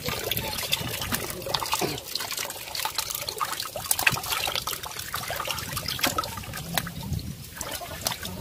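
Hands splashing and sloshing in a plastic basin of shallow water while picking out small fish, with water trickling and dripping off the hands in many small irregular splashes.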